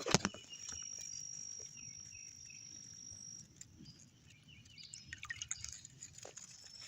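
Insect trilling steadily on one high pitch, stopping about three and a half seconds in and starting again near the end. A sharp knock comes right at the start and a few light clicks about five seconds in.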